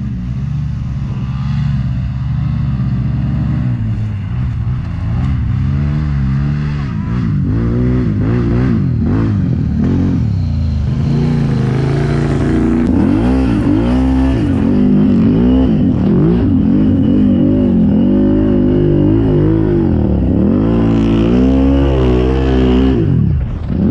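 Modded Can-Am Renegade ATV with a big-bore 1020 kit and HMF exhaust: its V-twin settles at idle for the first few seconds, then revs up and down over and over under throttle as the quad rides through the mud.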